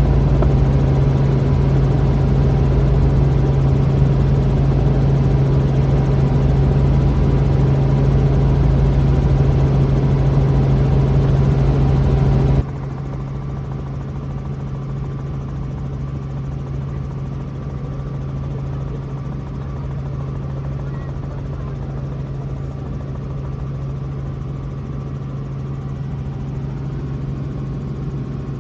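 Robinson R44 helicopter heard from inside the cabin: a steady drone of rotor and engine with a strong low hum. About halfway through the sound drops abruptly to a quieter, duller version of the same steady drone.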